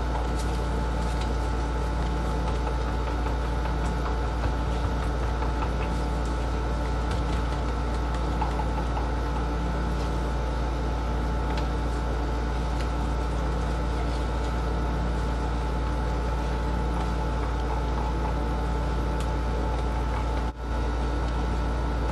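A steady machine hum with a few held tones, the same hum that lies under the talk before and after, and a brief dropout about twenty seconds in. Over it are a few faint light ticks from a stick stirring epoxy resin in a plastic mixing cup.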